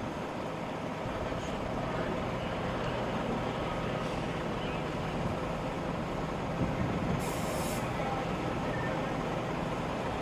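Steady low hum of idling emergency vehicles, with a brief high hiss about seven seconds in.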